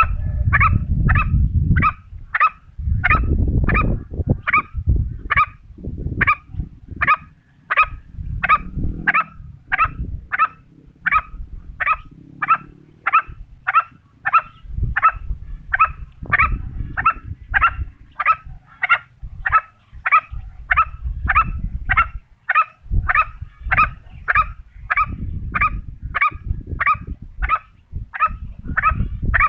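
An animal's short calls repeated steadily, about three every two seconds, with low rumbling coming and going underneath.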